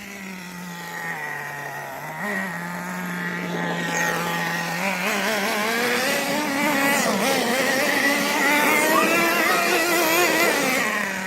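Nitro RC car's small glow-fuel engine running, its pitch wavering with the throttle; it grows louder over several seconds and fades near the end.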